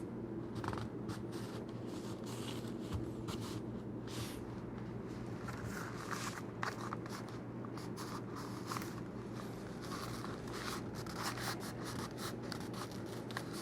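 Scattered scraping and light clicking of a kydex holster being handled and worked by hand, over a steady low hum.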